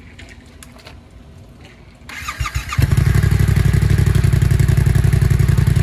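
2022 Yamaha YZF-R7's 689 cc parallel-twin engine, breathing through an M4 exhaust with a Q6 stage 2 dB killer insert, started about two seconds in; it catches almost at once and settles into a loud, steady idle.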